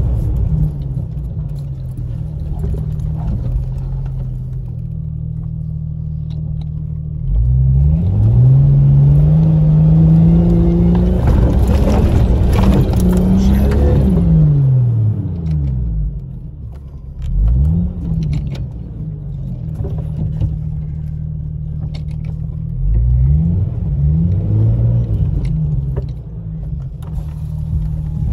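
Jeep Cherokee engine running under load on a muddy off-road trail. The revs rise and fall several times, with the longest, loudest push in the first half.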